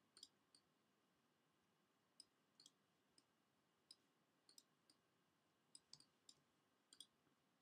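Faint, irregular clicks of a computer mouse and keyboard, about fifteen in all, often in quick pairs, as curve points are selected and dragged.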